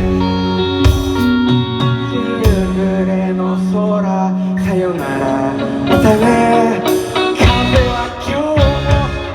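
A rock band playing: guitars and bass holding chords over a drum beat, with a lead melody that bends and slides in pitch from about halfway through.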